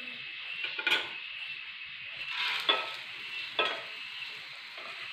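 Beaten rice flakes (aval) poured into hot ghee in a metal pan and stirred with a steel spoon: the spoon knocks and scrapes against the pan three times over a steady faint sizzle.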